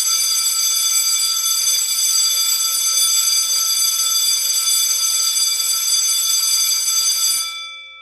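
Programmed school bell of a SuperSync BS-101 digital bell and broadcasting system ringing automatically for the 7 a.m. morning assembly, played through the unit's speaker. It is a loud, steady ringing of several high tones that fades out about seven and a half seconds in.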